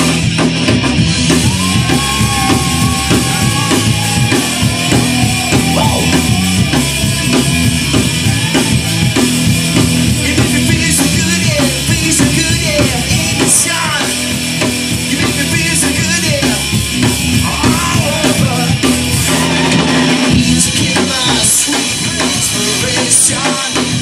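Live rock band playing loudly: drum kit with bass drum, electric guitar and bass, and a singer at the microphone.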